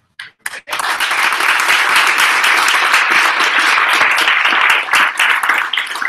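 Audience applauding: a few scattered claps, then full, steady applause from under a second in.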